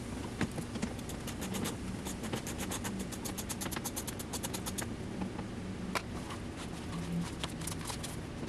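A socket ratchet clicking in quick runs as 10 mm bolts under a car's front bumper are loosened, with scattered single clicks between the runs.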